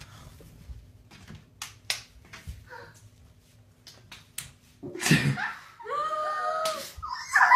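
A few faint scattered clicks and taps, then about five seconds in an excited voice exclaims, holding one long drawn-out note before a short loud cry at the end.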